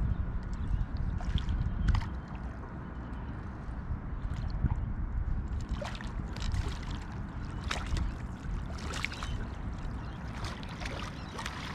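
Water lapping and gurgling against a small boat's hull over a steady low rumble, with scattered light clicks and knocks in the second half.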